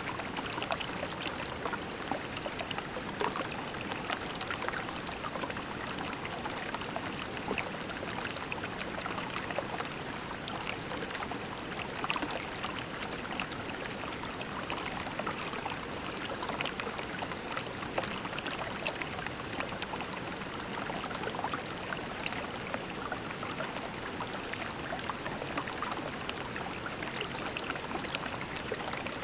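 A shallow creek flowing and trickling over pebbles: a steady babble of water with many small splashes and drips.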